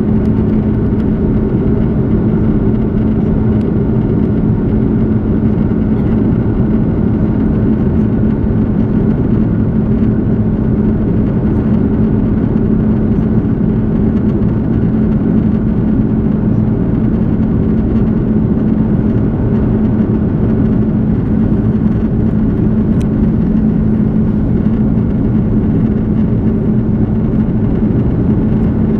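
Steady cabin noise inside an Airbus A330 with its engines running: a constant low hum over an even rumble, with no rise or fall.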